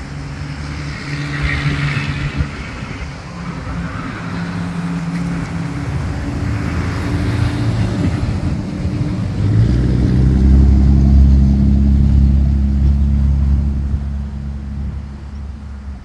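A motor engine running steadily. Its low hum grows louder about ten seconds in, then eases off near the end.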